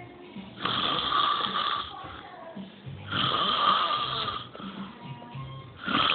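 A man snoring hard, loud rasping snores drawn in on the breath, about one every two and a half seconds: two full snores, and a third begins near the end.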